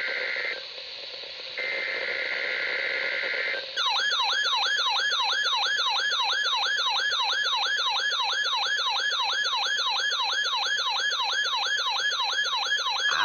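NOAA Weather Radio SAME data burst, a harsh buzzing digital header, sounds twice briefly. At about four seconds a weather radio receiver's electronic alarm starts: a loud warble sweeping up and down about three times a second, set off by the required weekly test.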